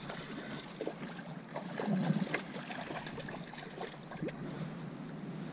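Water splashing and sloshing as a small hooked snook is reeled in close on a spinning rod: a run of irregular light splashes and clicks, loudest about two seconds in.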